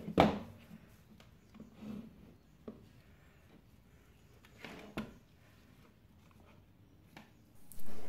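A few scattered knocks and light clatters of small plastic drain motor housings and a multimeter being handled and set down on a wooden workbench, the sharpest knock in the first second.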